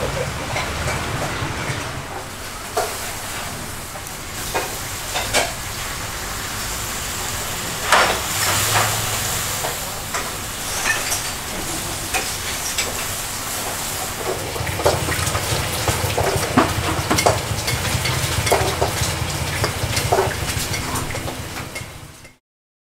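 Hot oil sizzling steadily in a wok as chicken fries, with sharp clicks of metal utensils now and then. The sound cuts off suddenly near the end.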